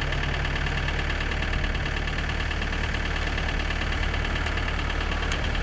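An engine idling steadily: a low, even hum with a fast regular beat.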